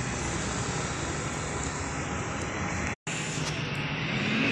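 Roadside traffic noise with a double-decker bus's diesel engine running. The sound cuts out briefly about three seconds in, and near the end a rising engine whine begins as a vehicle speeds up.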